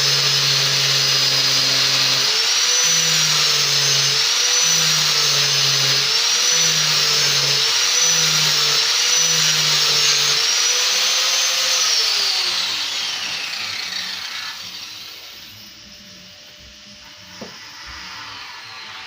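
Angle grinder with a sanding disc running under load on metal. Its whine wavers up and down in pitch as it is worked. About twelve seconds in it is switched off, and the whine falls away as the disc spins down.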